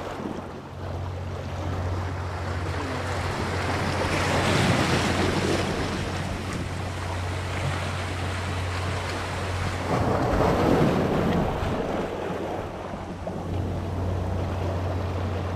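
Wind buffeting the microphone and surf washing on a rocky shore, swelling about four seconds in and again around ten seconds, over a steady low hum.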